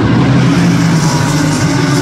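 Engines of several GT-style racing cars running hard along a street circuit, a steady loud engine drone heard from high above the track.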